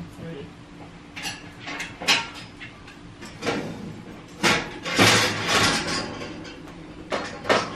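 Pots and pans clanking as a kitchen cupboard is rummaged through: a string of separate knocks and clatters, busiest about five seconds in.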